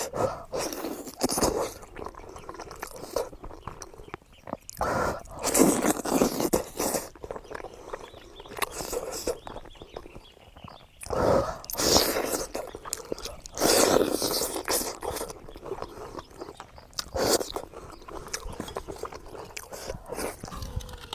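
Close-up eating sounds: a person biting and chewing braised pig's trotters, in irregular bursts with short pauses between.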